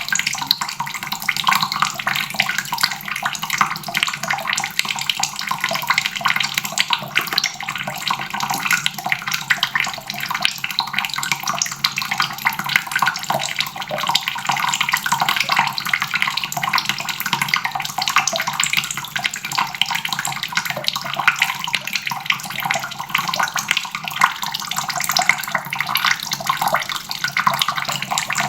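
Water running steadily from a faucet and splashing into a basin.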